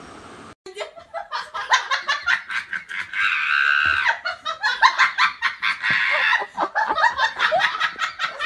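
A person laughing hard in rapid, choppy bursts, with a longer drawn-out stretch of laughter about three seconds in. A faint steady hum comes just before, cut off under a second in.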